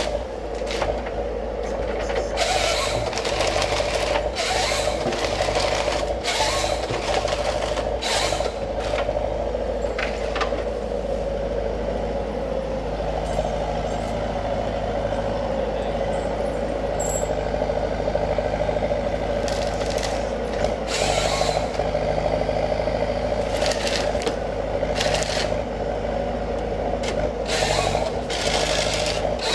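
Forestry harvester with a Log Max harvesting head, its engine running steadily under a constant hum, broken by many short hissing bursts, several of them a second or so apart.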